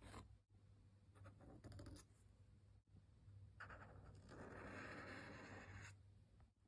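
Faint scratchy swish of a Tombow Dual Brush Pen's brush tip drawn across cold-pressed watercolor paper: a few short strokes, then one longer stroke from about three and a half seconds in to about six seconds.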